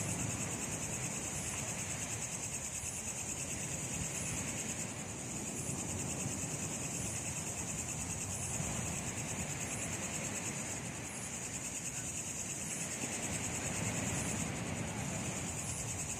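Steady high-pitched insect chorus with a faint regular pulsing, over a low rumble.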